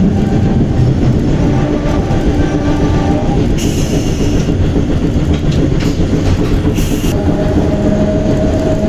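St. Charles Avenue streetcar, a Perley Thomas car, running along the tracks with a steady rumble. From about three and a half to seven seconds in, its wheels squeal high on the rails. Near the end a steady whine from the motors comes in.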